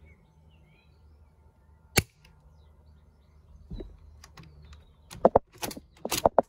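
APS M50 CO2 bolt-action airsoft rifle firing one shot, a single sharp crack about two seconds in, at about 526 fps. A softer knock follows, then near the end a quick run of clicks and knocks as the shell-ejecting bolt is cycled.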